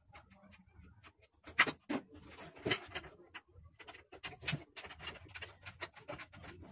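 Irregular clicks and knocks of a circular saw's plastic housing and loose parts being handled during disassembly, with a few louder knocks about one and a half, two and a half and four and a half seconds in.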